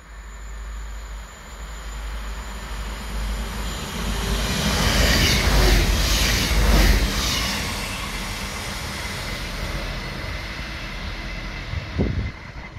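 Pair of VT646 diesel multiple units (Stadler GTW) passing through at speed without stopping. The noise builds as the train approaches and peaks about five to seven seconds in with a quick run of wheel clatter, then fades to a steady rumble as it draws away.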